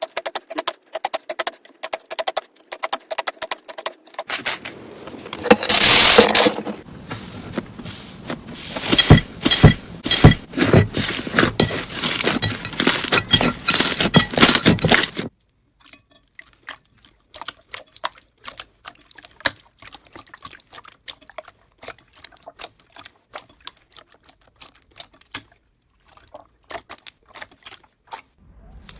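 Slime being squeezed, stretched and poked by hand: rapid trains of small wet clicks and pops. A louder stretch of squelching and crackling fills the middle, then it drops back to sparse, quieter clicks.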